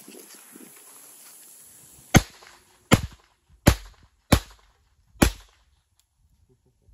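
Five shots from an H&R top-break hammerless revolver in .32 S&W, fired in quick succession about three-quarters of a second apart, emptying the cylinder.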